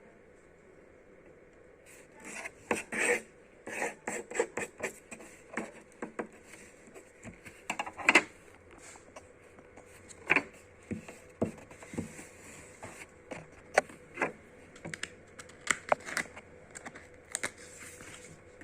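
Sticker sheets and packaging being handled: irregular scratchy rustles and small taps, starting about two seconds in and going on in uneven clusters.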